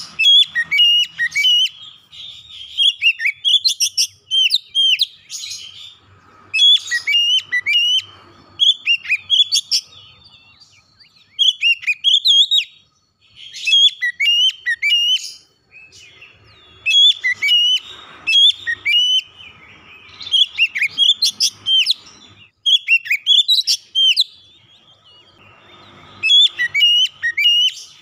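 Oriental magpie-robin singing in full voice: loud phrases of rapid, sweeping whistled notes, each a second or two long, repeated with short pauses between them.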